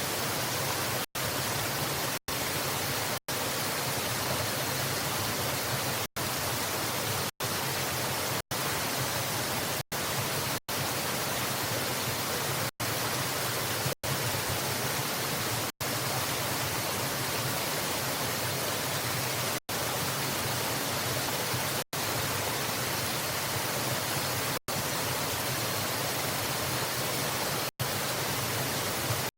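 Steady rushing of a waterfall, an even noise with no change in level, broken every one to three seconds by very brief gaps of silence.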